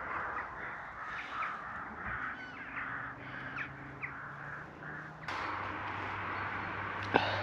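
Crows cawing repeatedly, a string of short harsh calls for about five seconds. The sound then changes abruptly to a steady low hum, with one sharp click near the end.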